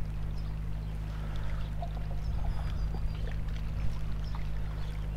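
Water lapping and trickling at the shoreline, with faint irregular splashes and ticks over a steady low rumble.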